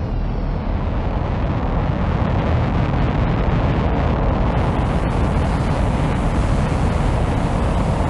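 A steady, deep rumbling noise like wind or surf, with no clear tune or beat, forming the ambient intro of a hip-hop instrumental.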